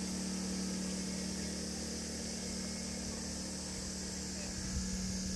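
A steady mechanical hum: a constant low tone with a hiss above it, unchanging throughout.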